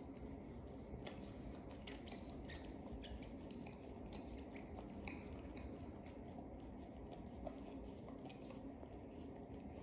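A husky gnawing and chewing a rubber toothbrush chew toy: faint, scattered short clicks of teeth working the rubber.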